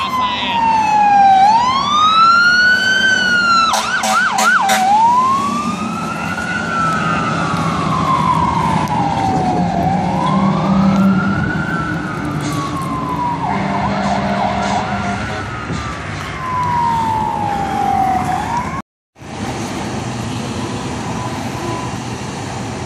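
Fire truck siren wailing, each cycle a quick rise followed by a slow fall, repeating about every four seconds, with a few shorter, lower blasts in between. Just before the end it cuts off abruptly and gives way to quieter, steady background noise.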